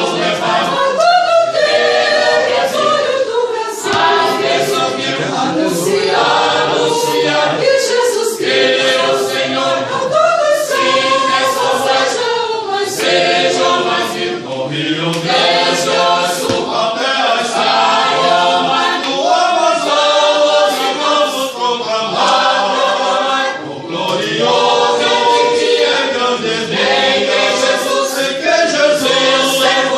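Church choir singing a gospel hymn.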